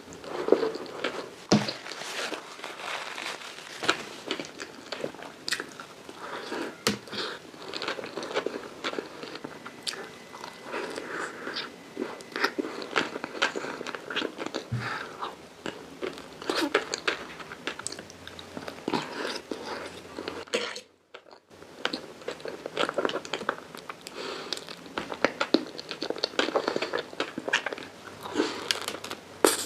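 Close-miked eating of chocolate caramel profiteroles: biting, crunching and chewing, with many small crackles and wet mouth sounds. The sound breaks off briefly about two-thirds of the way through.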